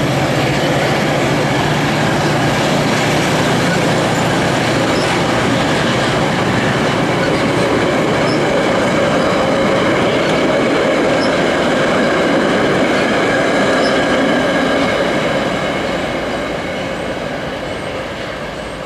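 Metra bilevel commuter cars rolling past at speed, a steady loud rush of steel wheels on rail that fades away over the last few seconds as the rear cab car draws off.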